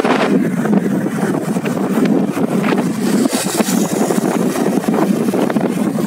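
Steady wind rush on the microphone of a moving motorcycle, with the engine running underneath.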